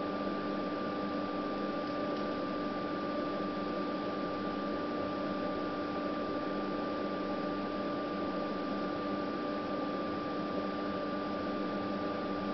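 Steady hiss and hum of running bench test equipment such as a spectrum analyzer's cooling fan, with a steady high whine above a lower hum tone that holds unchanged throughout.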